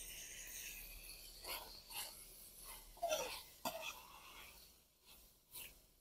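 Metal ladle stirring beef liver and ghee in an aluminium pot, a few short scrapes and knocks over a faint hiss in the first second or so.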